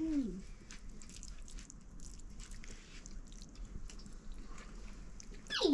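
People eating a meal: scattered small clicks and chewing sounds, with a short voiced sound at the start and a voice coming in right at the end.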